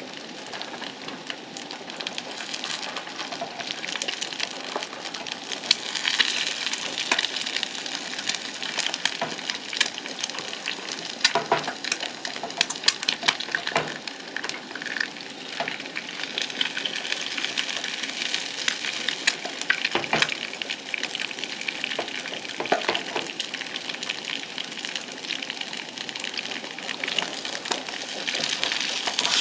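Eggs and corn frying in a skillet on a two-burner propane camp stove: a steady crackling sizzle, with a few sharp taps of a spatula against the pan now and then.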